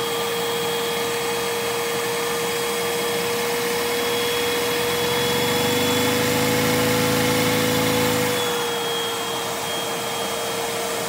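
Vacuum cleaner running with a steady whine and hiss, its suction driving a Lego inline two-cylinder overhead-valve vacuum engine. A rapid rattle from the engine comes in about halfway through and stops about two-thirds of the way in.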